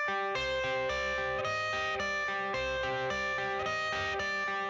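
Background music: a plucked guitar riff of short repeated notes, with no vocals yet.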